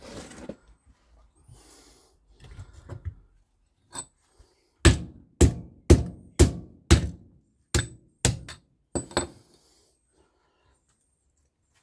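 A quick run of about nine sharp knocks, roughly two a second, like hammer blows on a hard object, each with a short ring. Lighter knocks and handling come before them.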